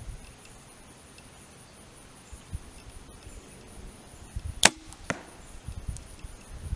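Compound bow shot from full draw about two-thirds of the way in: a single sharp crack of the string, then a fainter thump about half a second later as the arrow strikes the foam 3D deer target.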